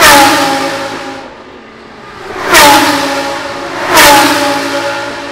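Three GT3 race cars passing close by at full speed one after another, each engine note falling in pitch as it goes past and fading. The third, about four seconds in, is a Lamborghini Huracán GT3 with its 5.2-litre V10.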